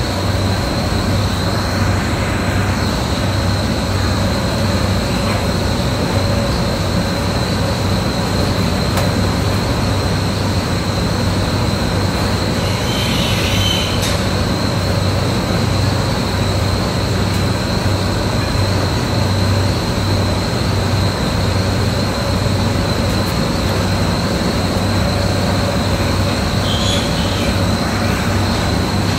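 Steady machine drone in a pig barn: a constant low hum under a thin high whine, unchanging throughout.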